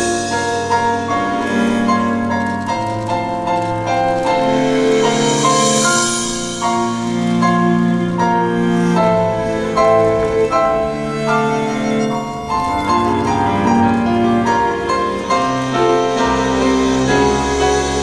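Instrumental music from a stage musical's epilogue: a running melody of short, distinct notes over sustained lower notes, with no singing.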